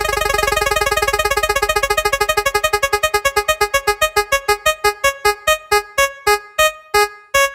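Spin-wheel sound effect: a rapid run of short electronic piano-like plinks that starts very fast and slows steadily, the notes spacing out as the wheel comes to a stop near the end.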